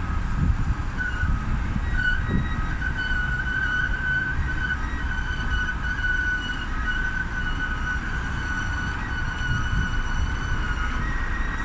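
Low rumble of road traffic from the busy road below, with a steady high-pitched whine held from about a second in until near the end.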